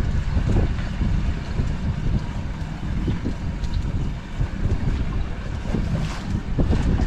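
Wind buffeting the microphone, an uneven low rumble, with the hiss of wind and sea behind it.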